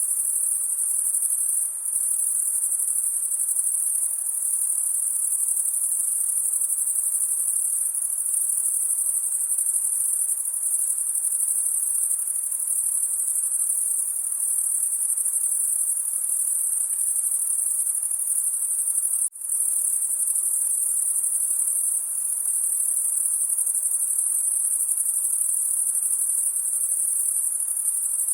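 Dense chorus of night crickets, a steady high-pitched trilling with no breaks except one brief dip about two-thirds of the way through.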